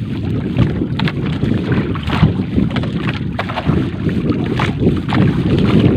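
Strong wind buffeting the microphone at sea, a heavy rough rumble, with scattered short knocks and splashes.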